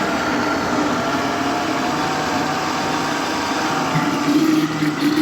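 Countertop blender running steadily, blending a creamy cake batter of eggs, milk, condensed milk, butter, flour and grated coconut: a continuous motor whine over the churning of the batter, a little more uneven in loudness near the end.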